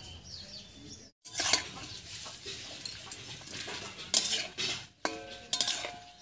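Metal spatula stirring and scraping cauliflower leaves in water in a steel wok, with several sharp clanks against the pan and a brief metallic ring.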